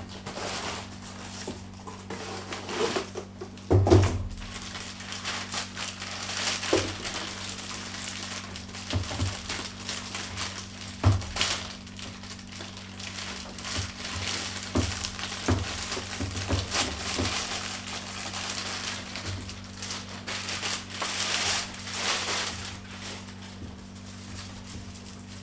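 Packaging crinkling and rustling in irregular bursts as a boxed, wrapped swimming duck decoy is unpacked by hand, with a few knocks, the loudest about four seconds in.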